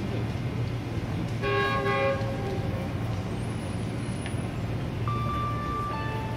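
A distant train horn sounds one multi-note chord for about a second and a half, starting about a second and a half in, over a steady low rumble. Near the end, fainter single steady tones follow.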